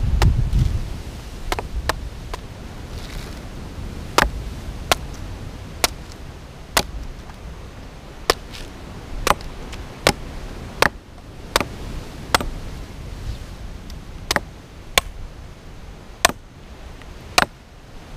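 Machete chopping into the husk of a green coconut to open it: about eighteen sharp strikes, roughly one a second with short pauses. Wind rumbles on the microphone at the start.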